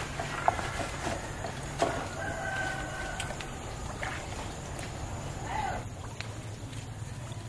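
A rooster crowing once, a held call about two seconds in, with a shorter call later, over a steady low hum. Sharp knocks and rustling come from a cage fish trap being handled among leafy plants.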